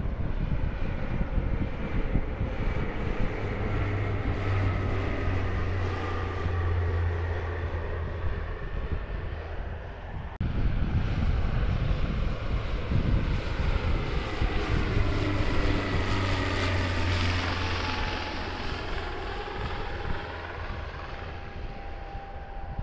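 Aircraft engines of a plane low on final approach, a steady roar with a low rumble. About ten seconds in the level jumps suddenly. The sound then builds to its loudest in the second half, with whining tones that fall in pitch as the plane passes.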